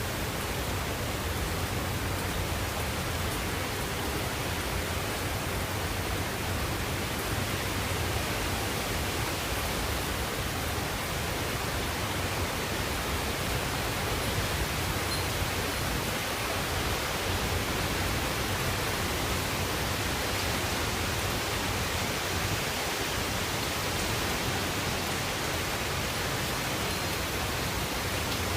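Typhoon storm: a steady, even rush of wind and heavy rain, unchanging throughout.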